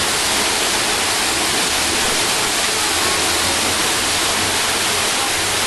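Loud, steady rush of a 90-foot waterfall pouring down.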